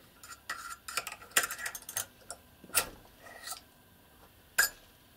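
Small steel parts of a Stirling 14P .22 rifle bolt clicking and tapping together as the firing pin is slid out and handled: a run of light, irregular metallic clicks over the first few seconds and one sharp click near the end.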